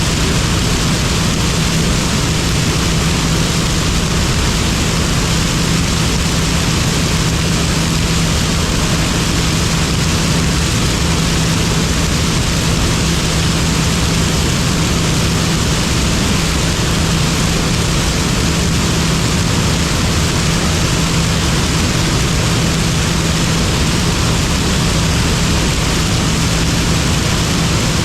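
John Deere 9860 STS combine running steadily under load while harvesting corn, a constant diesel drone with a steady low hum over dense machine noise.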